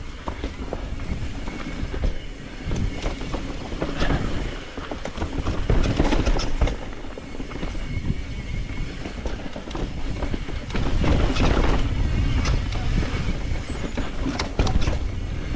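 Mountain bike riding fast down a dirt singletrack: tyres rolling over dirt and roots, with the chain and frame rattling in repeated clatters over bumps and a steady low rumble of wind on the microphone.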